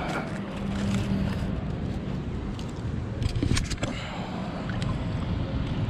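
Steady low outdoor rumble, either wind on the microphone or distant traffic, with a few faint clicks and knocks from handling a few seconds in.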